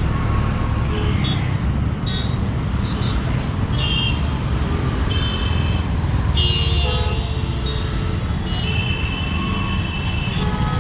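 Heavy road traffic running steadily past, with vehicle horns honking again and again in short toots throughout.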